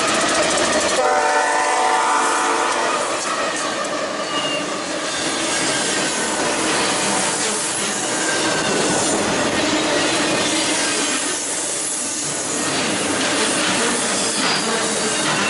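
BNSF diesel-led intermodal freight train passing close by: a pitched horn chord sounds from about a second in and fades out by about five seconds, as the low rumble of the locomotives drops away, then the steady rolling noise and clatter of the container and trailer cars goes on, with a few brief wheel squeals.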